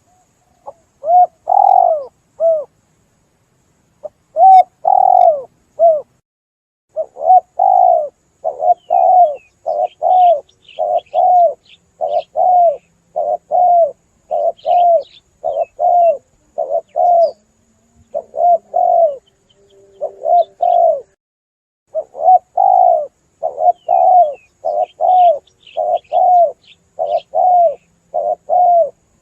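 Spotted doves cooing: short, arched coos repeated about twice a second in long runs, with a few brief pauses between phrases. Faint higher chirps come in here and there.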